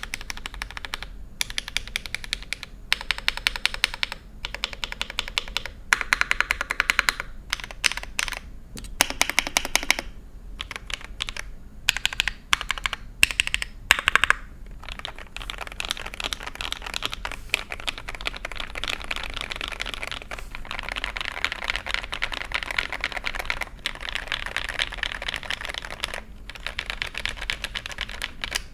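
Typing on a mechanical keyboard fitted with Akko double-shot ASA-profile keycaps, as a sound test. The typing comes in bursts with short pauses at first, then runs on steadily and fast from about halfway.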